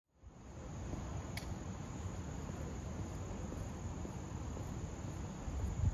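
Outdoor ambience fading in: a steady high drone of insects over a low rumble, with a short click about a second and a half in and a low thump near the end.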